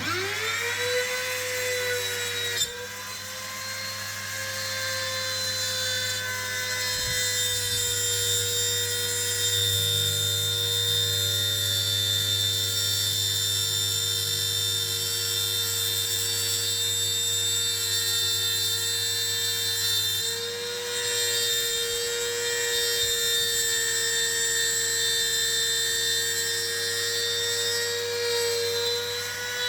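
Woodworking power tool's electric motor running at a steady high-pitched whine, spinning up at the start. Its pitch sags briefly twice, a few seconds in and about two-thirds of the way through, as it bites into wood.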